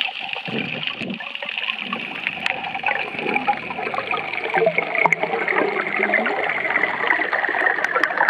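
Water rushing and sloshing around an underwater camera as it is swung up off the seabed: two low whooshes near the start, then a steady bubbling, crackling hiss that grows louder toward the end.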